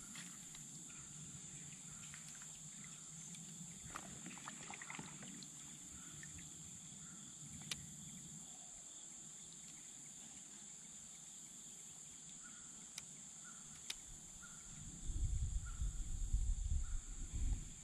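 Insects trilling steadily in a high, even drone, with a few faint clicks. Near the end there is a loud low rumble for about two seconds.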